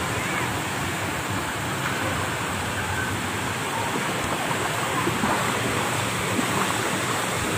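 Steady rush of splashing water in a water-park pool, with water pouring from the children's play structure.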